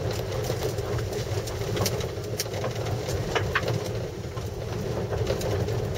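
Mazda Demio's engine running at low speed as the car rolls slowly, heard inside the cabin, with a few light clicks and rattles scattered through.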